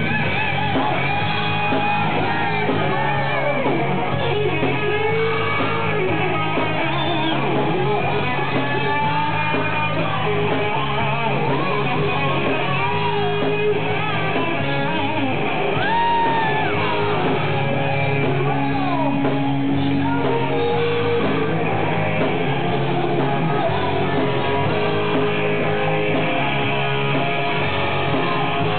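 Live heavy metal band playing: several distorted electric guitars play bending lead lines over drums, loud and steady throughout.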